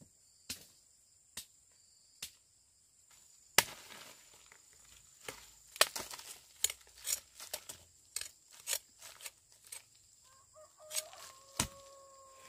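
Irregular sharp knocks and thuds, like strikes of a hand tool, sparse at first and then coming thick and fast in the middle, over a steady high insect trill. Near the end a chicken calls briefly.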